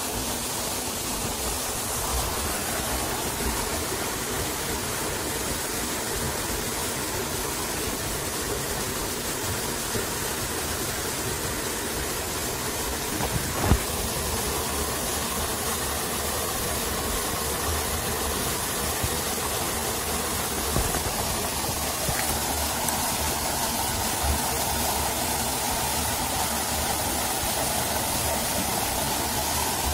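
Steady rush of a small waterfall pouring into a pool, with a single brief knock about fourteen seconds in.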